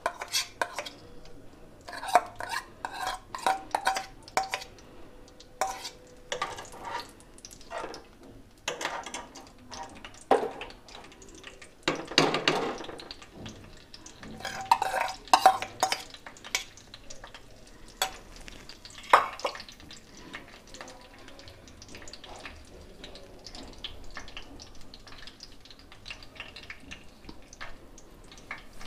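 Steel spoon scraping and tapping desi ghee out of a steel bowl into a hot kadhai, with clinks of metal on metal. For the last several seconds only a faint sizzle of the ghee melting in the pan remains.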